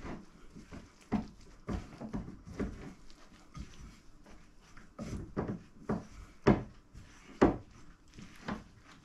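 Hands kneading flour dough for boiled dumplings in a glass bowl: irregular thumps, one or two a second, as the dough is pressed and folded.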